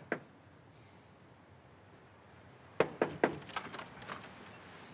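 A front door: two sharp knocks right at the start, then about three seconds in a quick run of clicks and knocks as the latch and lock are worked and the door opens.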